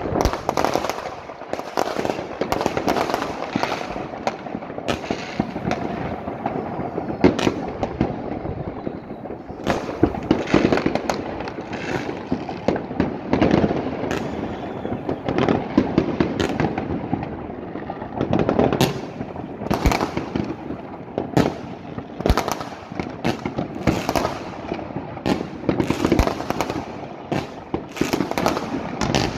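Many fireworks and firecrackers going off at once: a constant, irregular barrage of sharp bangs and crackles, some much louder than others, over a continuous rumble.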